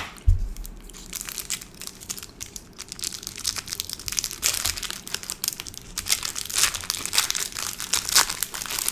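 Clear plastic candy wrapper crinkling as it is peeled off a soft blue sour dough candy, in quick crackles that grow denser in the second half. A single thump sounds just after the start.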